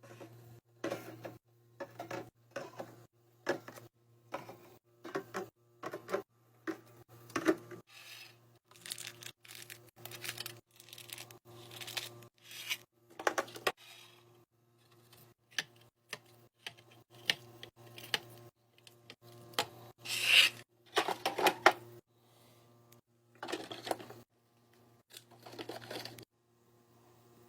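Restocking ASMR: a quick run of clicks, taps and clinks as drinks and packaged snacks are handled and set into a fridge, about one or two a second. A few longer rustles of packaging come about two-thirds of the way through.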